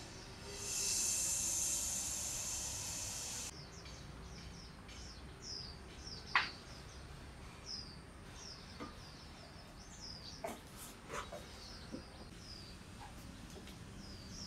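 A steady hiss for the first three seconds that stops abruptly, then small birds chirping over and over, with a few sharp clicks and knocks from sprayer parts being handled, the loudest about six seconds in.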